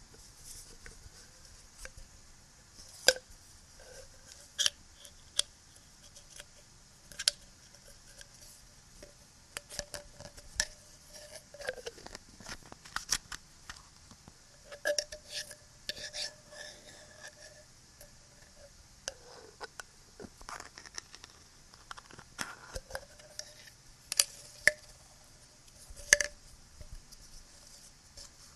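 Close-miked fidgety handling of small objects: irregular taps, clicks and scratches, a few of them sharp and loud, with some short squeaky rubs, over a steady background hiss.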